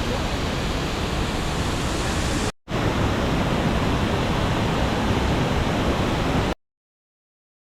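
Waterfall water rushing in a steady, even roar of noise, broken by a brief gap about two and a half seconds in and cutting off abruptly about six and a half seconds in.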